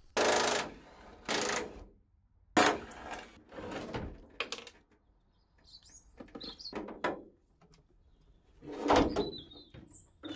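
Clunks, knocks and scrapes of a car bonnet being lifted and lowered onto the front of a Toyota MR2 to fit it, several separate handling noises with a sharp knock about two and a half seconds in.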